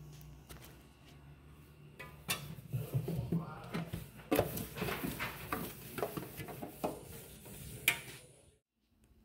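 Dishes and cutlery clattering at a stainless steel kitchen sink: a quick, uneven run of knocks and clinks with one sharp clink near the end, then the sound cuts off suddenly.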